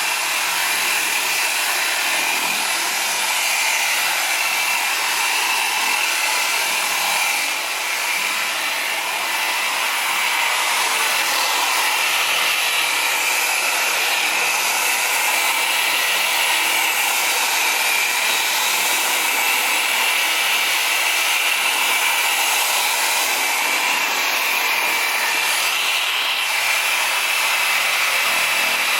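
Electric torque polisher running steadily, its pad buffing polish into car paint, with a constant high whine from the motor.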